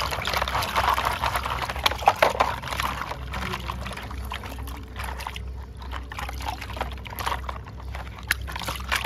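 Water sloshing and splashing in a plastic basin as hands scrub plastic toy trucks in it, busiest in the first few seconds, with a few sharp knocks.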